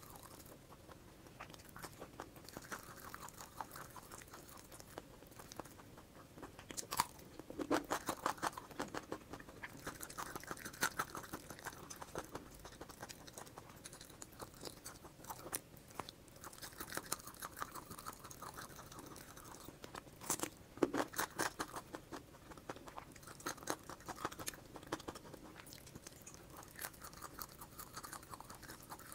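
A person chewing and crunching worms, with quick wet mouth clicks throughout and two louder runs of crunchy bites, about seven seconds in and again about twenty seconds in.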